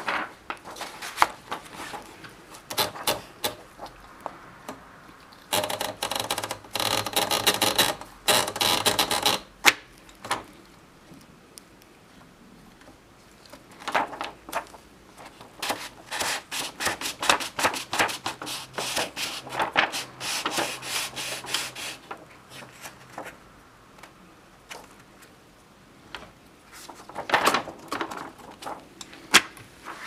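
A 1937 Torpedo 15 portable typewriter being handled as paper is fed in: scattered mechanical clicks and rattles from its carriage and platen, with two longer stretches of dense rattling, one near the start and a longer one in the middle.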